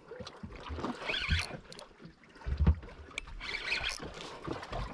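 Water lapping and slapping against a small boat's hull, a soft wash every couple of seconds with a few low bumps, the heaviest about halfway through.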